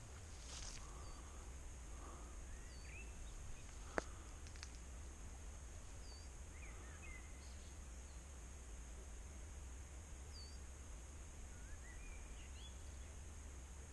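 Faint, scattered bird chirps over a steady low rumble and hiss, with a single sharp click about four seconds in.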